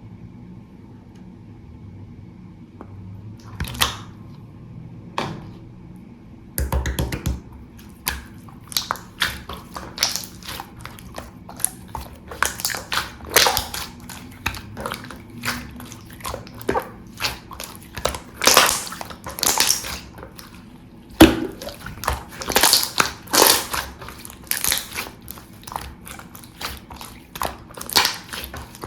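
Jelly-textured clear slime being squished and pressed by hand, making wet, sticky crackling clicks and pops. After a quiet start with a couple of single clicks, a dense run of clicks begins about six seconds in.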